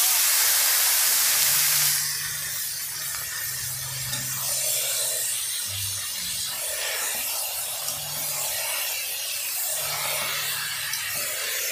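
Marinated chicken sizzling in a pot of hot oil: a loud frying hiss that drops abruptly to a quieter, steady sizzle about two seconds in.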